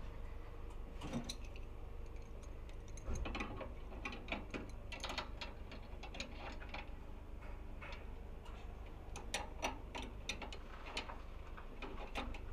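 Irregular sharp metallic clicks and taps, some in quick clusters, from hand tools working the flare-nut fittings on an air conditioner outdoor unit's service valves, over a steady low hum.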